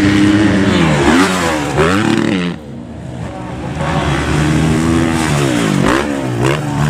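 Several motocross bikes racing on a dirt track, their engines revving up and down through gear changes with overlapping rising and falling pitches. The sound drops away for about a second midway, then builds again.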